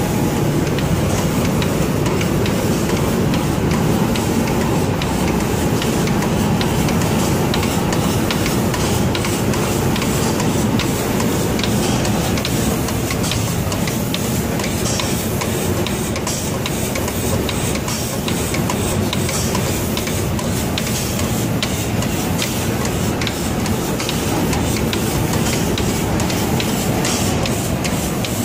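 Automatic paint spraying machine running: a steady machine noise with the hiss of the spray guns and faint rapid ticking.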